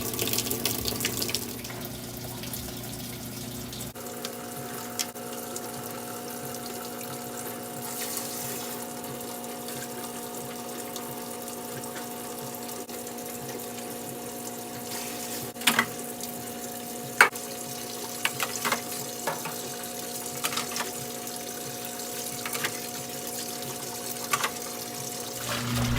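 Washing machine filling its tub with water: a steady rush of water, with a steady hum joining about four seconds in and a few sharp clicks in the second half.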